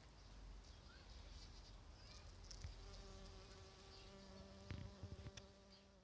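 Bumblebee buzzing at a rose flower: a faint, steady hum that comes in about halfway through, with a few soft clicks near the end.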